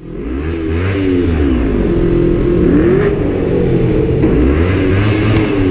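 An engine revving, its pitch rising and falling several times over a steady low rumble, starting suddenly at the beginning.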